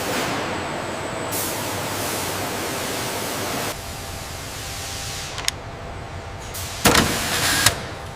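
Workshop machinery noise: a steady loud hiss that drops off sharply after about three and a half seconds to a quieter hum. Then there is a single sharp click, and near the end two loud knocks.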